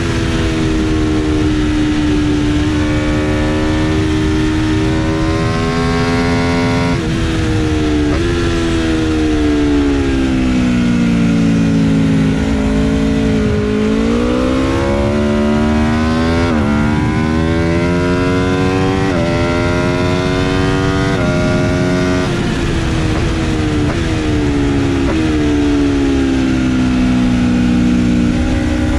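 Aprilia RSV4 RF's V4 engine heard onboard at racing speed, its pitch falling as the bike brakes into corners and rising as it accelerates out, with sudden jumps and drops at each gear change. A steady rush of wind runs underneath.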